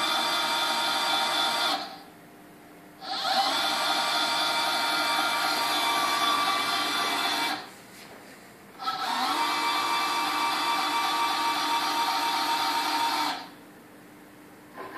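Five-axis CNC machine's axis drive, with Trespa gears, whining steadily as its carriage travels along the ball-screw rail. It runs in three moves split by two pauses of about a second; the second and third moves open with a brief rising pitch as the drive speeds up, and the last move stops near the end.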